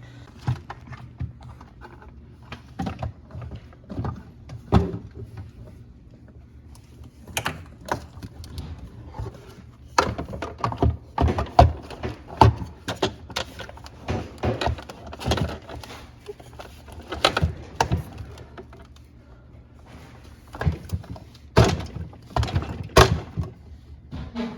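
Irregular clicks, knocks and thunks of plastic and metal parts being handled and fitted, as a refrigerator's ice-dispenser auger motor is reinstalled, with a steady low hum underneath.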